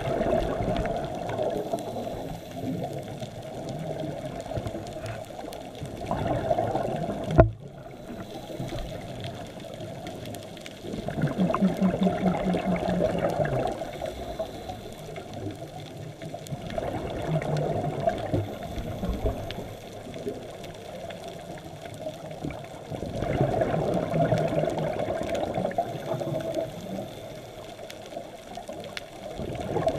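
Scuba regulator breathing underwater: exhaled bubbles rush out in bursts about every five to six seconds, some with a low buzz. One sharp knock about seven and a half seconds in.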